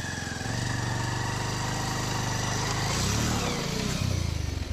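Motorcycle engine revving hard under load as the bike, stuck in sand, is pushed and driven free. The engine holds a steady high rev, then its pitch rises and falls from about three seconds in as the bike pulls out.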